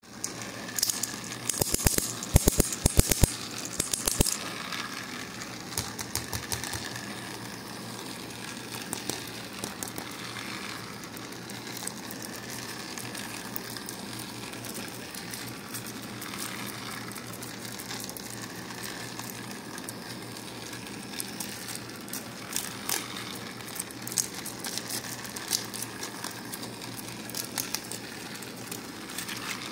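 Foil wrapper of a chocolate egg crinkling and crackling as it is peeled off by hand. The crackles come thickest and loudest in the first few seconds, then again near the end.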